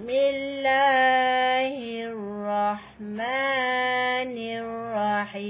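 A woman's voice chanting Quranic Arabic in a slow, melodic recitation style. She draws out long held notes, with a short break about three seconds in.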